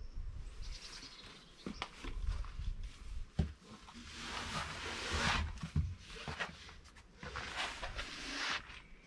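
Outdoor wind noise: gusts rumbling over the microphone and a hiss that swells twice and fades, with a few sharp clicks.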